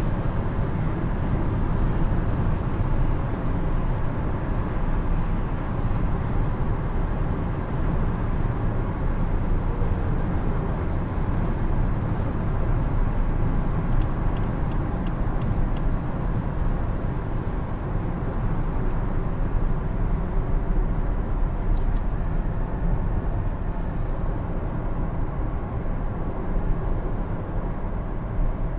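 Steady cabin noise of a 2020 Lexus ES 350 driving at highway speed, heard from the driver's seat: a constant low tyre and road rumble with some wind, easing slightly as the car slows.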